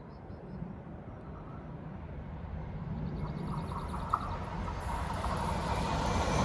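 A train approaching along the line, its rumble growing steadily louder.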